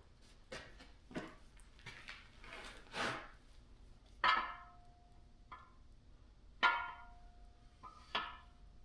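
Metal engine parts and tools being handled: a few scraping knocks, then three sharper metallic clanks, each leaving a short ringing tone.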